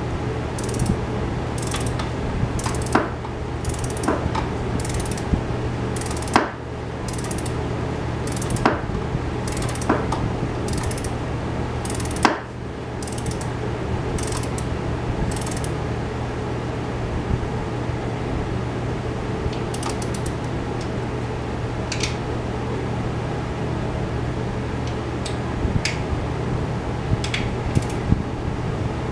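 Socket ratchet clicking in short strokes as a partly assembled engine is turned over by hand, with a couple of sharper knocks, over a steady low hum. The clicks come about once a second at first and thin out to a few scattered ones in the second half.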